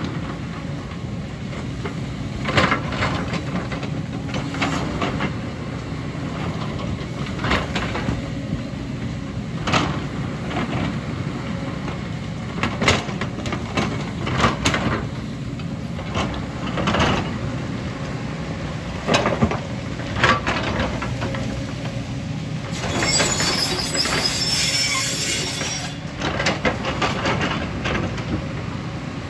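JCB tracked excavator running under load, its steel bucket scraping and striking rock and soil with repeated sharp clanks over a steady engine rumble. About three-quarters of the way through there are a few seconds of louder hissing and rattling.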